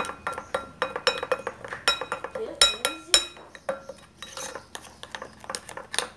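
A spoon stirring thick cake batter in a glass bowl, clinking against the sides in a quick, uneven run of strikes, each with a brief ringing tone from the glass.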